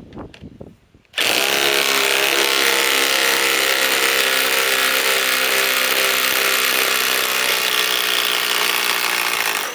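RIDGID subcompact cordless impact wrench hammering steadily as it drives a 6-inch lag screw, starting abruptly about a second in and stopping near the end.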